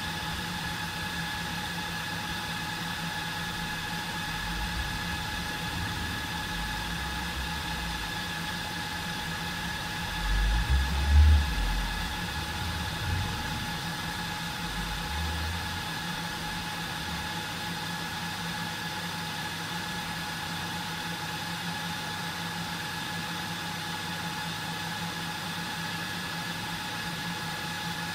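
HP ProLiant DL380p G8 server's cooling fans running steadily through the power-on self-test, a constant noise with several held tones in it. A few low rumbling bumps come near the middle, the loudest about eleven seconds in.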